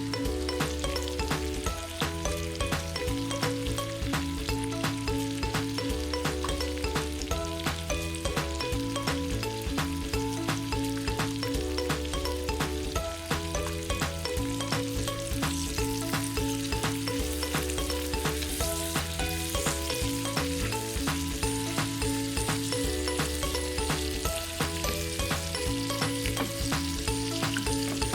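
Food frying in a pan, with a steady crackling sizzle, under background music with a repeating bass line.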